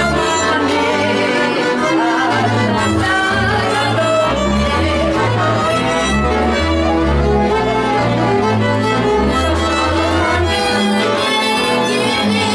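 Instrumental music led by violin over a bowed-string accompaniment with a moving bass line.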